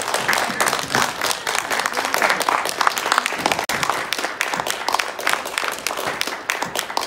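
Audience applauding: a dense clatter of many hands clapping together, with a brief break partway through.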